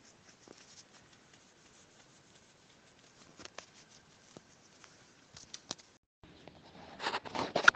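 Faint room hiss with a few scattered light clicks and rustles, broken by a moment of dead silence about six seconds in, then louder rustling near the end.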